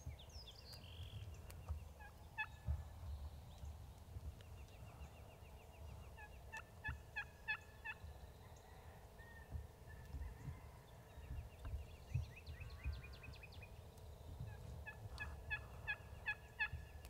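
Wild turkey gobblers gobbling in the distance, in two bouts, about seven seconds in and again near the end.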